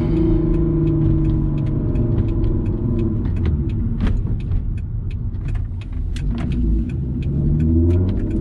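A 2004 VW R32's 3.2-litre VR6 engine pulling the car along, heard from inside the cabin. The engine note eases down over the first few seconds and climbs again near the end as it accelerates, with scattered light clicks throughout.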